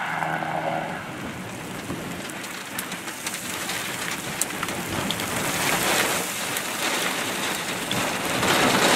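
Heavy rain pelting a vehicle's windows and body, a dense steady hiss with scattered sharp drop hits, swelling louder twice in the second half.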